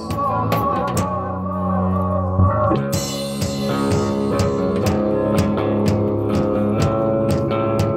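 Rock band playing live on guitar and drum kit. The guitar holds low notes while the drums ease off, then a cymbal crash about three seconds in brings the drums back in on a steady beat.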